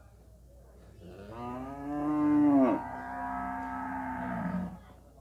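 One of the cattle mooing: a single long call that swells, drops sharply in pitch about halfway through, then carries on lower for about two seconds before stopping.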